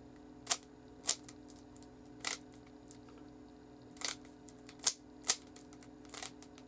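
Plastic Rubik's Cube being scrambled: the clicks of its faces being twisted, about seven sharp clicks at uneven intervals.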